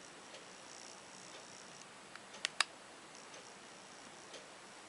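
Two sharp clicks in quick succession, about two and a half seconds in, over faint hiss: buttons pressed on the iPod nano clone's click wheel to start playback.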